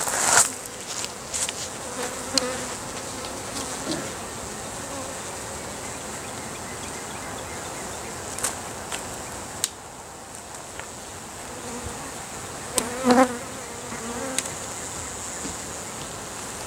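Honeybees buzzing around an open hive, a steady wavering hum with single bees flying close past, loudest about 13 seconds in. The bees are stirred up by the hive being opened. A few light clicks are heard, mostly near the start.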